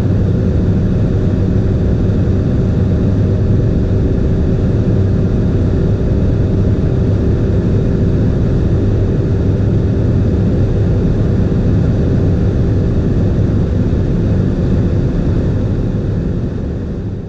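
Skoda Octavia RS245's 2.0-litre turbocharged four-cylinder engine pulling hard under full throttle at around 240 km/h, heard from inside the cabin, its revs creeping up slowly near the top speed, with wind and tyre noise. The sound fades out near the end.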